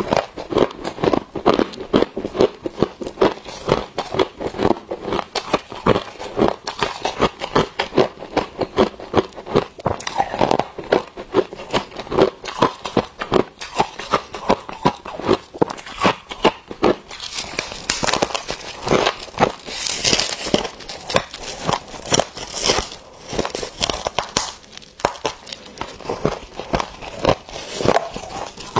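Close-up crunching of soft, snow-like freezer frost being bitten and chewed, a rapid run of crisp crunches. For several seconds past the middle the crunching turns louder and hissier.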